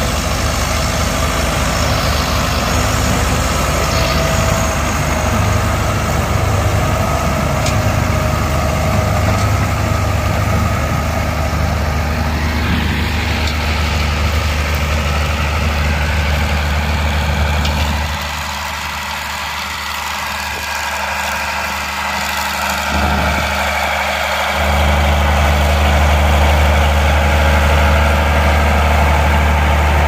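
County four-wheel-drive tractor's Ford diesel engine running steadily under load while pulling a plough. It drops quieter for several seconds past the middle, then grows louder near the end as the tractor works close by.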